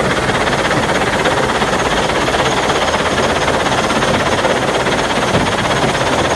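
Gravel washing plant at work: high-pressure water jets spraying onto alluvial sand and gravel in the hopper, a loud, steady rushing noise with a fast rattle under it.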